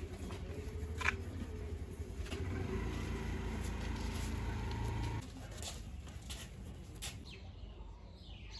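An engine running with a steady low hum that swells a little, then drops away abruptly about five seconds in; faint bird calls in the background.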